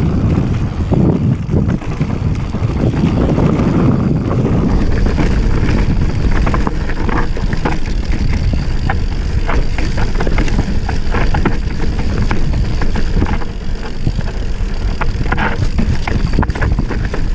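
Mountain bike riding fast down a rocky dirt trail: wind rumbling on the microphone and tyres running over loose gravel, with frequent short knocks and rattles from the bike over rocks.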